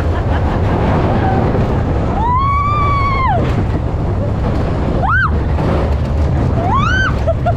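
Big Thunder Mountain Railroad's mine-train coaster running on its track with a steady low noise. Riders' screams ring out over it: one long held 'woo' about two seconds in, then two short rising yelps near five and seven seconds.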